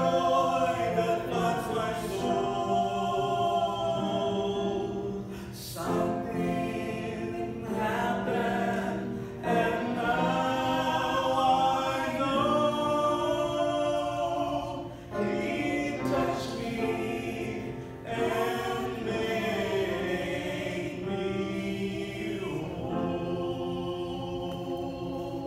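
A man and a woman singing a gospel song together as a duet through a microphone, their two voices in harmony.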